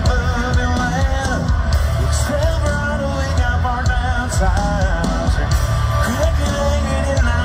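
Live country band playing with a male singer, carried over a large outdoor concert sound system with heavy bass.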